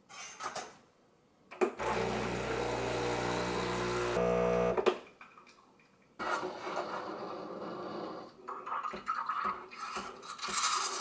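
A few clicks, then an espresso machine's pump hums steadily for about three seconds as a shot is pulled, and cuts off. After a short pause, the steam wand hisses into a pitcher of milk as it is steamed, getting busier near the end.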